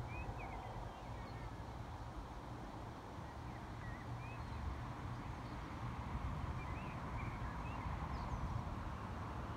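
A steady low outdoor rumble, with short high bird chirps scattered through it.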